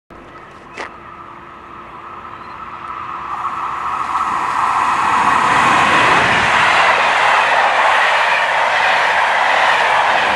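A train approaching and passing, its rail and running noise building over about four seconds and then staying loud and steady. A single sharp click sounds about a second in.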